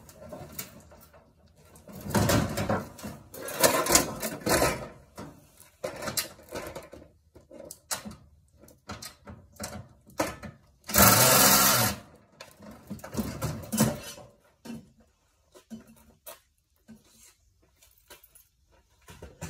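Knocks and clatter of tools and metal parts while a washing machine is being taken apart, with a short burst of a small power tool running for about a second, eleven seconds in.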